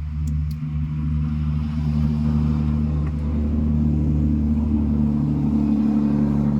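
An engine running steadily at a fixed pitch, growing louder over the first few seconds and then holding.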